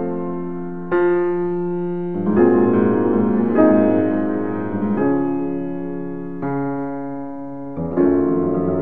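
Slow background piano music. Sustained chords are struck about every second and a half, and each rings on and fades.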